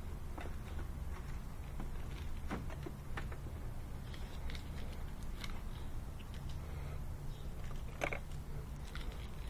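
Scattered light clicks, crinkles and rustles of cardboard and packing material being handled as a new fan motor is unpacked, with a sharper click about eight seconds in, over a low steady hum.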